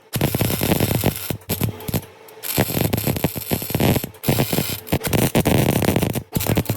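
Electric welding arc crackling in a run of short stop-start bursts of a second or two each, tack welding a broken car exhaust pipe.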